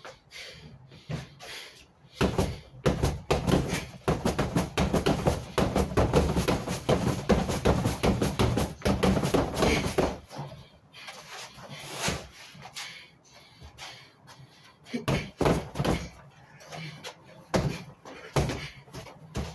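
Gloved punches and kicks thudding against a free-standing Everlast heavy bag. The strikes come in a fast, dense flurry from about two seconds in until about ten seconds, then as single hits spaced a second or more apart.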